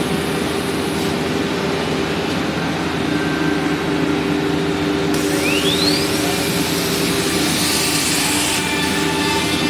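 Nesting CNC router running: a steady machine hum with a held low tone, and a short rising whine about five seconds in, followed by a brighter hiss for a few seconds.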